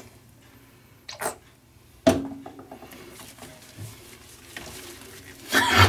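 A wet ferret making a few short, upset sounds while held and lathered in a bath it dislikes, with two sharp sounds about one and two seconds in and fainter ones after.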